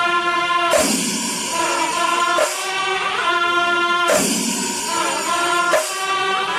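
Music: sustained held notes, with a shimmering percussion hit about every second and a half.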